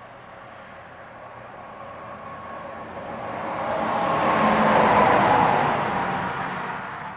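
Heavy truck passing at highway speed: its noise swells, is loudest about five seconds in, then fades away.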